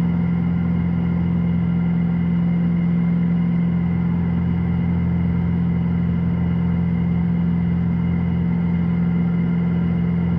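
Steady drone of a Piper PA-46 Malibu's single piston engine and propeller in the climb, a constant low hum that does not change in pitch or level.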